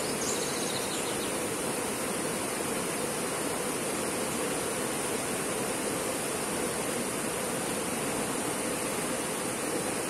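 Steady rushing of a river running over rocks and small rapids. A faint high chirping sounds briefly near the start.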